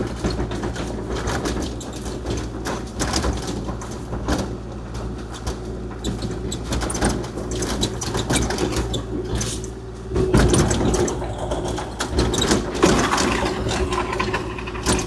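Kubota KX040-4 excavator's diesel engine running with a steady low hum, under a continual clatter of knocks and scraping. The clatter grows louder from about ten seconds in.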